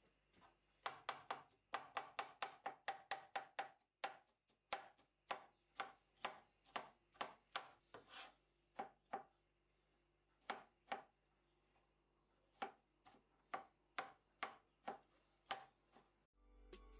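A cleaver-style kitchen knife chopping soft vegetable on a cutting board: a quick run of sharp knocks, about three a second. They thin out for a few seconds in the middle, then pick up again.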